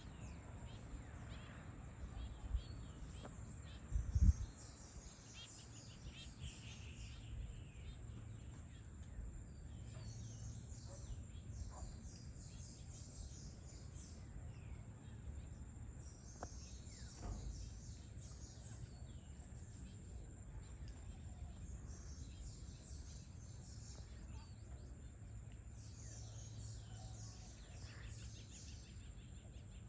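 Outdoor ambience of insects chirping high and fast in stop-start bouts, with a few short falling bird calls over a steady low rumble. A couple of low thumps come about four seconds in and are the loudest sounds.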